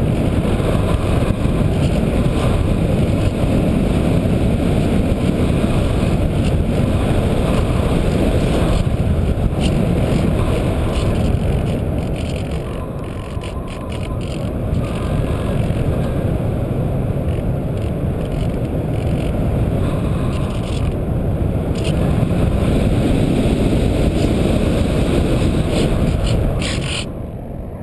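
Wind rushing over the microphone of a camera mounted on a Radian RC glider in flight: a loud, steady, low rumble with no clear engine pitch, easing briefly about halfway through and again near the end.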